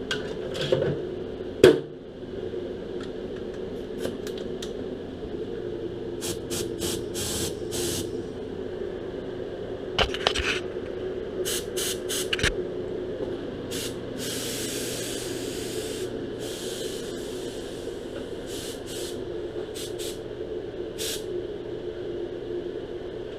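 Air spray gun spraying POR-15 rust coating in many short bursts of hiss, with one longer pass around the middle, over a steady low hum. A sharp knock comes near the start.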